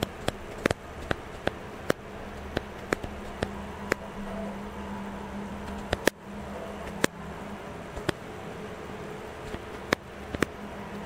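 Camera shutter-speed and ISO control dials being turned step by step. Each detent gives a sharp click, at irregular intervals and sometimes two or three in quick succession, over a steady low hum. Each click is one step of the exposure setting.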